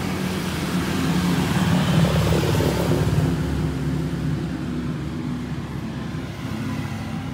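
Street traffic: a motor vehicle passing on the road below, its engine hum swelling to a peak about two seconds in and then fading away.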